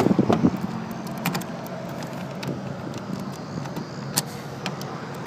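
Keys jangling and clicking as a key is tried in a minivan's door lock and does not fit, a few sharp clicks a second or so apart, over the steady low hum of an idling engine.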